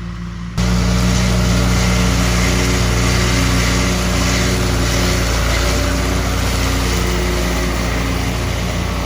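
Engine running steadily at constant speed, loud and close, cutting in suddenly about half a second in after a brief tail of guitar music.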